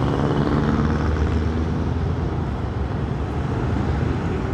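Yamaha motor scooter running under way in city traffic: a steady engine drone mixed with road and wind noise.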